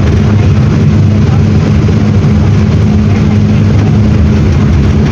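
Mercedes-Benz OM-924 LA four-cylinder inline turbodiesel of an OF-1721 BlueTec 6 bus running at a steady, even pitch with no revving.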